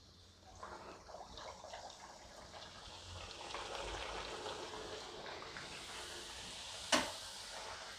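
A tomato puri deep-frying in hot oil in an aluminium kadai, sizzling and bubbling; it starts about half a second in and grows louder over the first few seconds. Near the end a single sharp tap as the wire-mesh frying spoon meets the pan.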